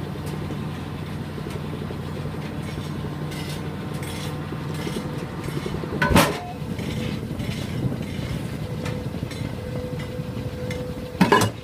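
Steady drone of plant machinery, broken by a loud metallic clang about six seconds in. Near the end comes a sharp double clang as a steel plate riding the conveyor belt is snatched up against the overhead electromagnet.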